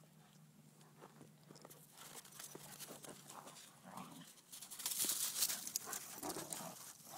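A standard poodle and a Portuguese water dog playing rough together in snow, with faint dog noises and scuffling. About five seconds in, a louder stretch of snow crunching and rustling.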